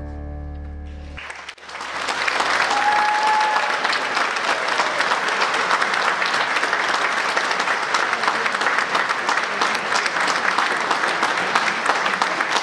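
A band's last held chord dies away about a second in, then an audience claps steadily, with a short whistle near the start of the applause.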